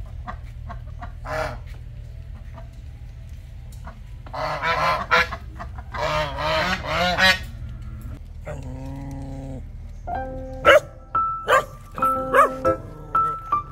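Domestic white geese honking in several harsh bursts, the longest lasting about a second. Near the end, background music with short bell-like notes comes in.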